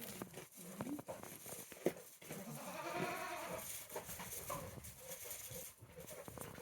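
Goats bleating: a short low call about half a second in, then a longer bleat that rises and falls around three seconds in, with light clicks and rustles between.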